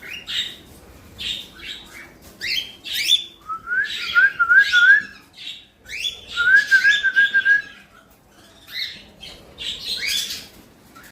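Small pet parrots calling: short, sharp chirps throughout, with two wavering whistled warbles, one about three and a half seconds in and one about six and a half seconds in, each lasting about a second.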